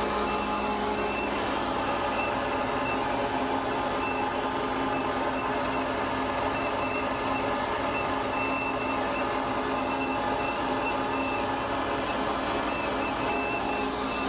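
Hensley Super Auger bulk feed trailer's unloading augers running steadily, about six minutes into unloading a load of feed, with a faint high whine that comes and goes.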